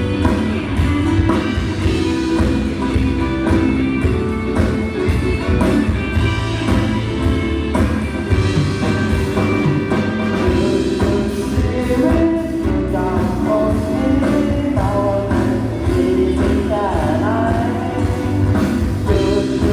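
Loud amplified band music with a steady beat and a singer, played through a PA during a sound check.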